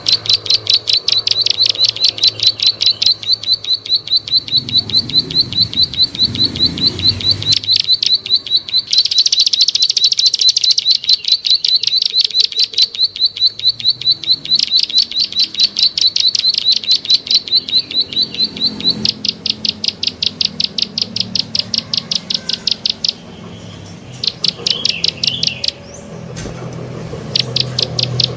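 Plain prinia (prenjak sawah) giving long runs of rapid, sharp ticking 'klik' calls, many a second, with a short break about two-thirds of the way through before the ticking resumes.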